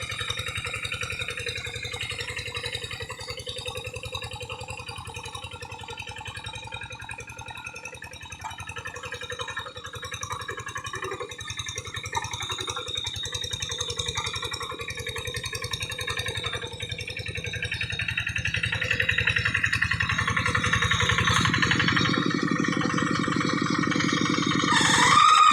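Quick G1000 hand tractor's single-cylinder diesel engine chugging steadily as it works through paddy mud, growing louder over the last several seconds.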